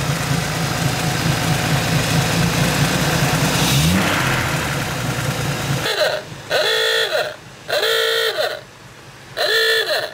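1947 Bentley Mark VI's 4¼-litre straight-six running at idle, with a short rev about four seconds in. The engine is shut off about six seconds in, and three horn toots of about a second each follow.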